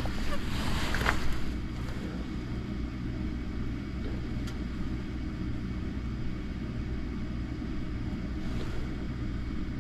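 Gas furnace's fan motors running with a steady low hum.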